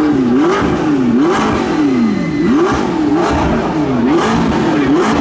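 McLaren 675LT Spider's twin-turbo V8 being revved while stationary: a quick series of throttle blips, the pitch rising and falling about seven or eight times, with a few sharp exhaust cracks between them.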